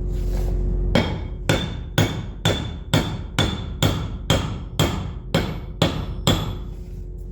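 Hammer blows on a steel bolt used as a drift, about a dozen strikes at roughly two a second, each with a short metallic ring, driving the fan bearing out of a John Deere 6081 thermostat housing.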